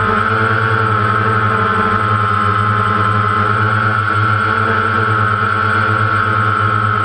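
DJI Phantom quadcopter's electric motors and propellers in flight, a steady high whine over a low hum, picked up close by the camera mounted on the drone.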